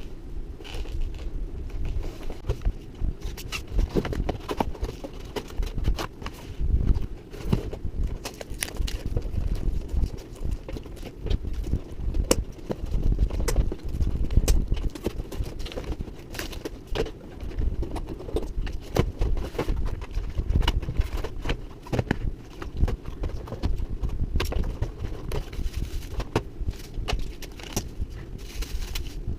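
Unboxing sounds of a toy blaster and its packaging being handled: irregular clicks, knocks and taps, one after another, over a low rumble of handling noise.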